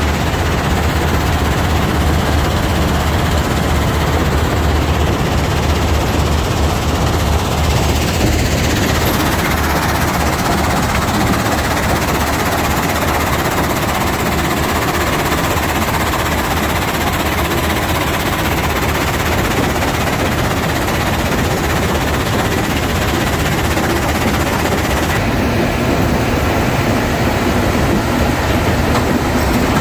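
Steady, loud mechanical din of a McCloskey R155 mobile screening plant running with lime rock: diesel engine, shaking screen deck and rock rattling through the screens, with no break.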